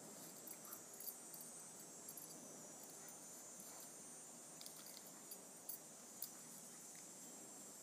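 Faint, steady high-pitched chorus of insects, with a few faint scattered clicks.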